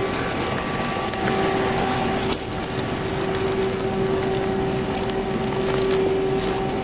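Steady mechanical hum with several constant whining tones from an idling vehicle with its air conditioning running, and one light click a little over two seconds in.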